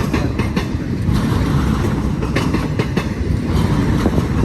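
BNSF intermodal freight train of double-stacked domestic containers rolling past close by: a steady heavy rumble of steel wheels on rail, with irregular clicks and clatter as wheel sets cross rail joints.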